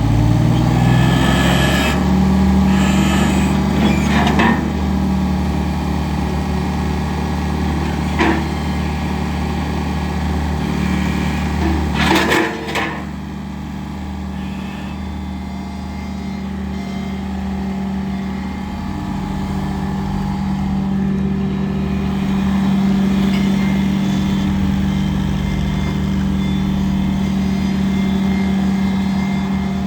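Ditch Witch SK1050 walk-behind skid steer loader's engine running, its speed climbing over the first couple of seconds and then holding steady. A few sharp metallic clanks come through, with a brief louder clatter about twelve seconds in.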